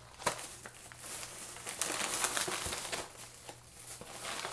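Plastic food packaging crinkling and rustling as it is handled, a dense crackle of small clicks that is busiest in the middle and eases off near the end.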